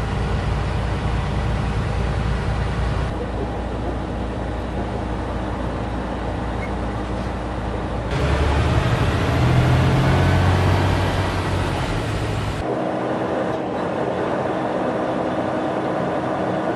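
Freightliner semi-truck's diesel engine running steadily under way, with road noise. The drone changes abruptly about 3, 8 and 13 seconds in, the deepest and loudest stretch lying between about 8 and 13 seconds.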